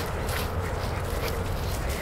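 Footsteps and rustling through grass, irregular, over a steady low rumble of wind on the microphone.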